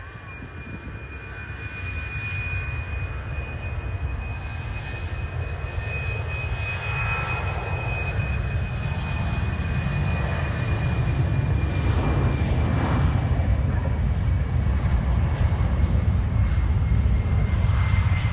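Airbus A319's CFM56 jet engines at takeoff thrust during the takeoff roll: a deep rumble under a high, steady fan whine. The sound grows steadily louder as the plane nears, and the whine sinks slightly in pitch.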